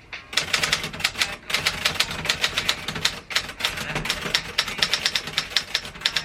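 Typewriter being typed on: rapid keystrikes, several a second, with a short pause about three seconds in.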